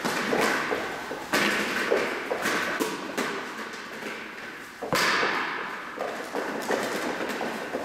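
A rubber playground ball thrown and bouncing on the floor, with quick running footsteps. One louder bang about five seconds in echoes around the large hall.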